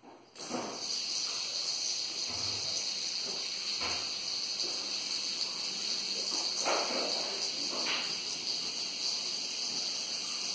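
Several fidget spinners whirring on their ball bearings, a steady high whir that starts about half a second in as they are set spinning. A few light knocks sound over it.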